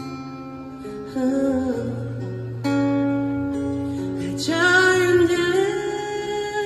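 Music: guitar with a singing voice, a sung note bending in pitch about two-thirds of the way through.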